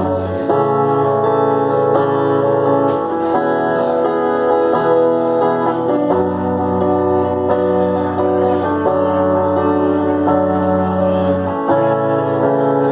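Guitar playing a slow passage of held chords, the chord changing about every three seconds.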